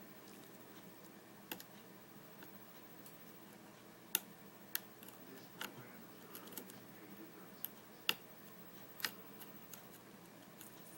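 Sparrows offset hybrid pick working the pin stacks of a Corbin euro cylinder lock under tension: a handful of sharp, irregularly spaced metal clicks as pins are lifted and set.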